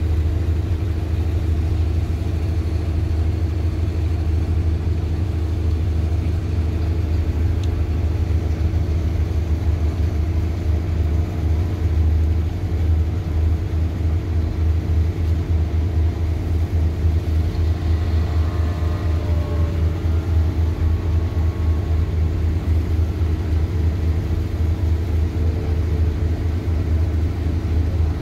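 Fast passenger ferry's engines running with a steady low rumble as the boat moves off under way.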